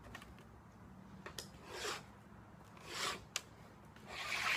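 Faint scraping of a metal rule and a marker being worked along flat sheet metal, in three short strokes about a second apart, with a couple of light clicks as the rule is set down.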